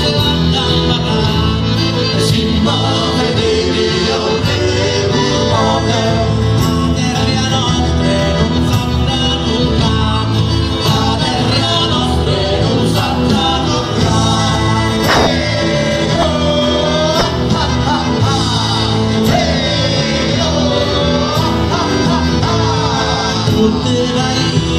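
Live southern Italian folk band playing with a steady beat: a male singer over accordion, guitar, drum kit and tambourine.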